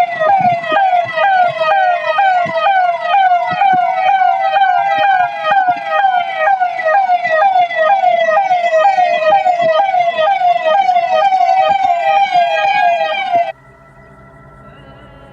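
Electronic siren sounding a continuous pattern of quick, repeated falling sweeps over a wavering wail, cutting off suddenly near the end. It is sounded as an alert telling people to wear masks against the spread of COVID-19.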